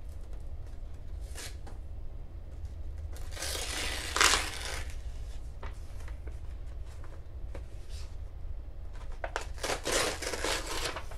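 Paper mailer envelope being torn open by hand: a long rip about four seconds in and a second run of tearing and rustling paper near the end, with small paper clicks in between.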